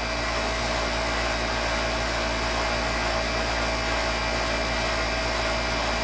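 A 1996 Intertherm R-22 central air conditioner's outdoor condensing unit running steadily, its compressor and condenser fan giving a constant hum over an even rush of air.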